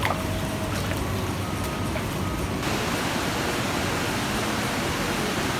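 Steady rushing water, an even hiss with no speech. A few faint musical tones sit over it in the first half and stop about halfway through.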